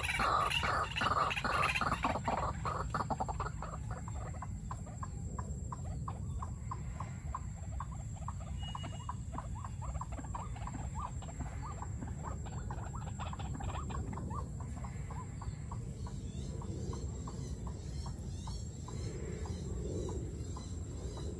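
Caged decoy white-breasted waterhen calling: a fast run of short, repeated notes, loudest at the start and thinning out after several seconds into fainter, scattered notes.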